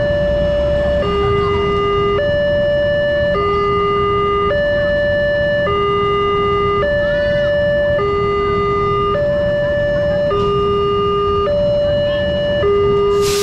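Wantech railway level-crossing alarm sounding its two electronic tones in turn, high then low, each held a little over a second, over the low rumble of a diesel locomotive passing. A short burst of noise near the end.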